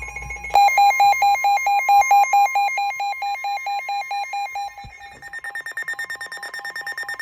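Several NOAA weather radio receivers sounding their alert alarms at once for a Special Marine Warning: loud, rapid electronic beeping, about six beeps a second on a few pitches, over a steady warning tone. The beeping starts abruptly about half a second in, and about five seconds in a higher-pitched beeping alarm takes over.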